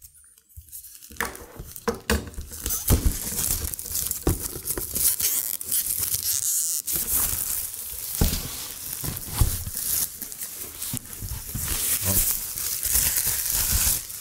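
Clear plastic shrink wrap being torn and crinkled as it is pulled off a cardboard box: a dense crackling that starts about a second in.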